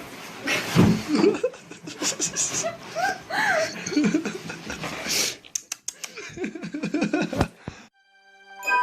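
People laughing and giggling in bursts, with a few sharp clicks near the end.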